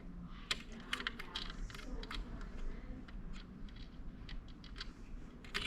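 Irregular light clicks and taps of small metal parts being handled and fitted on a Singer 401 sewing machine during reassembly.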